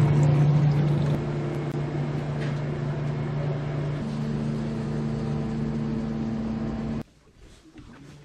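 Steady low mechanical hum. About four seconds in, a second, higher steady tone joins it, and the sound cuts off suddenly near the end.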